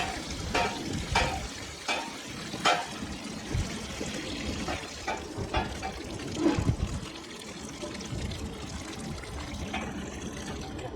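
Water being poured and splashing in a steady trickle, with a few sharp clicks or knocks in the first three seconds.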